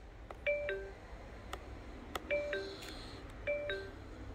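FineDrive car navigation unit sounding a two-note descending ding-dong chime three times through its speaker, with a few faint clicks in between.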